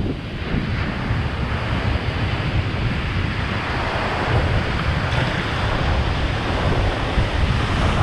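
Wind buffeting the microphone over a steady hiss of water and surf on a shallow reef flat; the hiss grows louder about halfway through.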